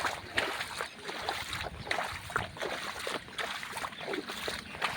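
Floodwater splashing and sloshing in short, irregular splashes.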